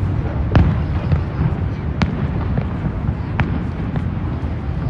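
Distant fireworks popping about every second and a half over a steady low rumble.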